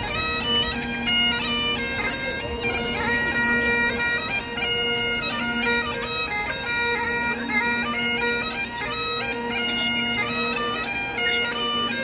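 Bagpipes playing a tune: a melody of quick, stepping notes over a held drone.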